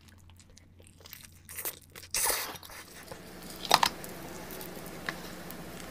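Close-miked mukbang eating sounds: wet chewing and crunching of cheese-covered fried chicken, then king crab leg shells being cracked and pulled apart by hand, with one loud sharp crack just under four seconds in.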